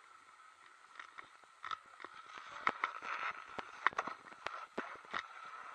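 Skis sliding and scraping over packed groomed snow as a skier sets off downhill, with irregular clicks and scrapes of the skis and edges that grow busier after the first couple of seconds.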